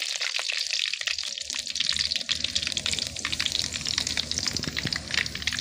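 Mustard seeds and curry leaves sizzling in hot oil in a kadai: the first stage of tempering, a steady hiss with many small crackling pops.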